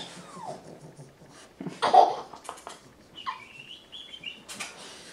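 Brief, scattered vocal sounds from a baby and a pug: a short voice-like burst about two seconds in, then a thin, high squeal a second later, and a click near the end.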